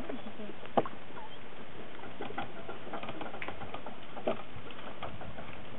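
Dogs' feet pattering and clicking as they cross a small bridge, with two sharper knocks, about a second in and just after four seconds in, over a steady hiss.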